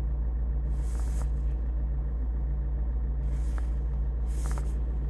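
Car engine idling, a steady low hum with an even pulse, heard from inside the cabin. A few faint brief clicks and hisses come about a second in and again near the end.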